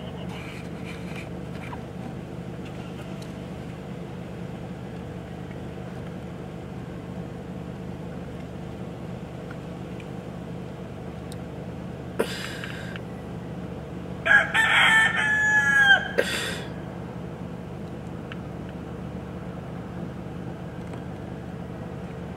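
A rooster crows once, a loud crow of about two seconds roughly two-thirds of the way through, with a short call a couple of seconds before it. A steady low hum runs underneath.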